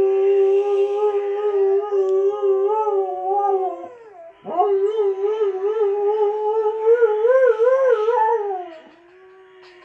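Alaskan malamute howling: one long howl held on a steady pitch that drops away about four seconds in, then a second howl that wavers up and down in pitch and falls off about a second before the end.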